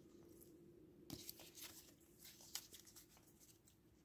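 Near silence with a few faint, light clicks of rigid plastic card toploaders knocking together as a stack of trading cards is handled, scattered between about one and three seconds in.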